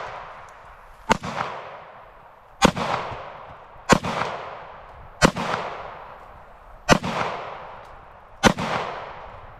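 A Ruger P345 .45 ACP semi-automatic pistol fires six shots at an unhurried pace, about one and a half seconds apart. Each shot trails off in a long echo.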